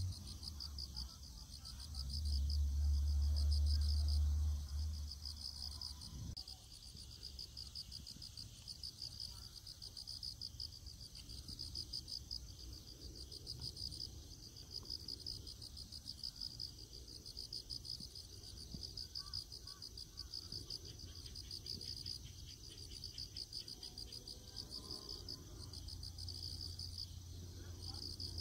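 Outdoor insects singing in a steady chorus of high, pulsing chirps that repeat about once a second. A low rumble rises under them about two seconds in and fades after about five seconds.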